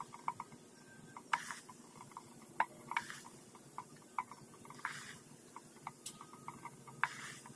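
Faint, irregular popping of gas bubbles on the foaming surface of hydrochloric acid and hydrogen peroxide as they dissolve brass. It is a scatter of small ticks with a few sharper pops.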